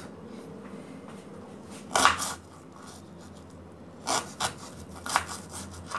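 Kitchen knife slicing through an onion onto a cutting board: a handful of separate cuts, one about two seconds in and three or four more near the end.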